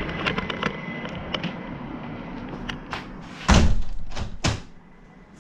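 Light clicks and knocks of objects being handled, with a heavy thud about three and a half seconds in and a second, lighter knock about a second later.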